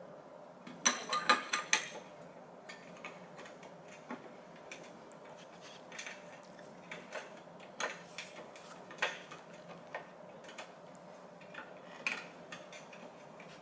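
Clear plastic blender jar and its blade assembly being handled and turned by hand: a quick run of sharp plastic clicks about a second in, then scattered light clicks and taps.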